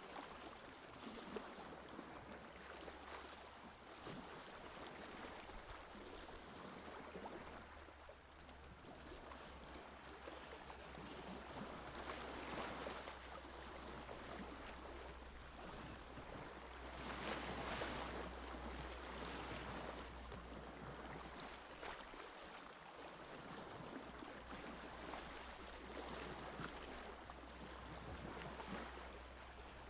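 Gentle sea waves lapping and washing on the shore, faint and continuous, with two slightly louder swells about twelve and seventeen seconds in.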